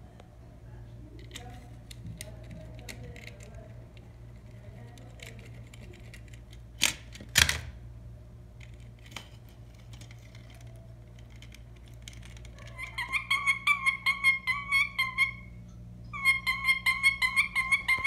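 Bird-like chirping trill of rapid, evenly spaced high notes, about six a second, in two runs of a few seconds each in the second half. A couple of sharp knocks come about seven seconds in.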